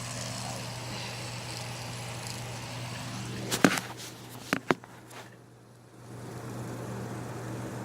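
Spinner toy being handled: a few sharp clicks about halfway through, over a steady low hum.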